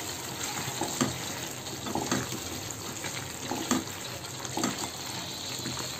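Creamy chicken curry simmering in a pan with a steady hiss, with a few soft scrapes and knocks from a wooden spatula stirring it.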